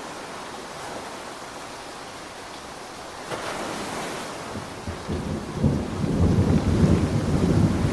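Steady rain hiss, then thunder: a brighter swell a little past three seconds, followed by a deep rumble that builds from about five seconds in and rolls on loud and low to the end.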